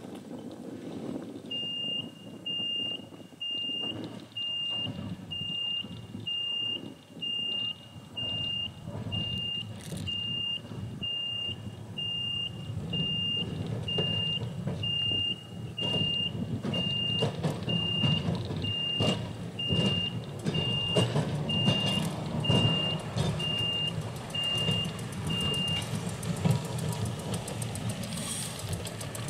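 Tram crossing warning beeper sounding a steady high beep about once a second, stopping near the end. Under it, a restored Melbourne electric tram's running rumble builds from about halfway as the tram draws closer.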